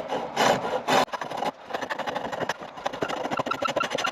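Chisel cutting a chestnut spindle on a treadle-driven pole lathe, in rhythmic scraping strokes about two a second as the work spins back and forth. The cutting stops about a second in, followed by lighter rapid clicking and rubbing.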